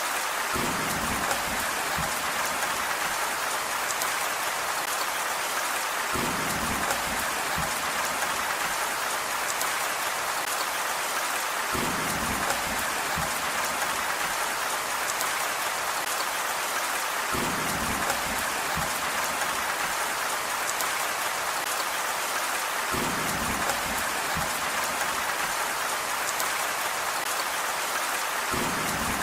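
Steady rain falling on a surface, an even hiss. About every five and a half seconds a brief deeper patch with a few sharp drip clicks comes round again.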